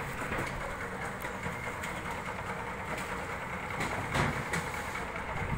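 Steady mechanical rumble of machinery running, with a few light knocks and a louder knock about four seconds in.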